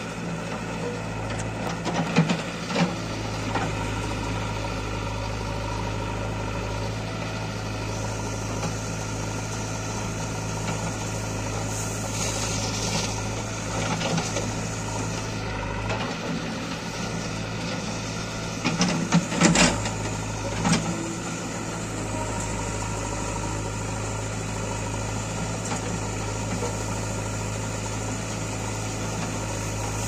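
JCB 3DX backhoe loader's diesel engine running steadily as the backhoe digs and loads soil, with clusters of sharp knocks about two seconds in and again around twenty seconds in.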